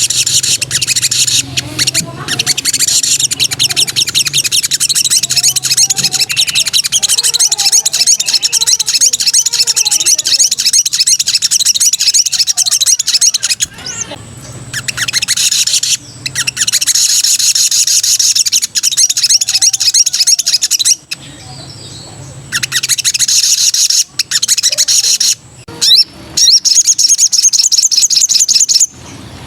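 Spiderhunter (sogon) in full song: long runs of very fast, high-pitched trilled chattering, broken by a few short pauses.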